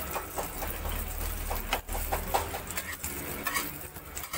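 Egg sizzling in a nonstick frying pan while a metal spatula scrapes under and folds the omelette, with a sharp tap of the spatula on the pan about two seconds in.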